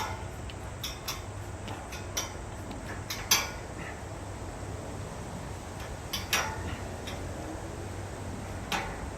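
Scattered sharp knocks and clicks, the loudest about three seconds and about six seconds in, over a steady low rumble.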